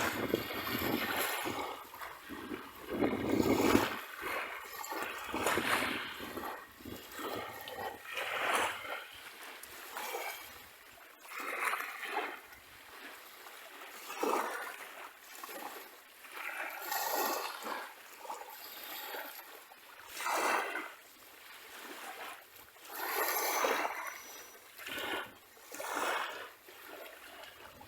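Small sea waves washing and splashing up a beach, each wave a rush of surf that swells and fades, arriving every two to three seconds.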